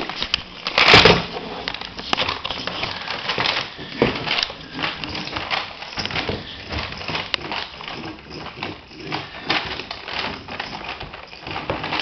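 Motorised cat-in-the-bag toy wriggling across the floor, its paper bag crinkling and rustling in a dense, uneven crackle. A louder rustling bump comes about a second in.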